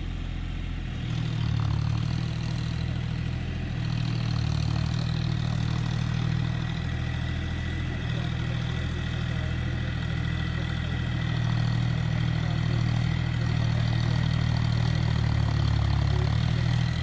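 John Deere farm tractor's diesel engine running steadily as the tractor drives across the field. It gets louder about a second in.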